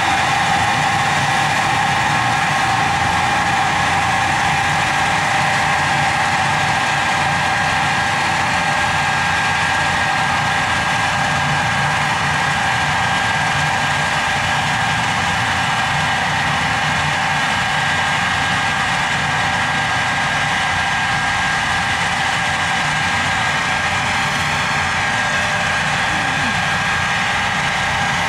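A machine running steadily: a constant mechanical drone with a steady high whine over it.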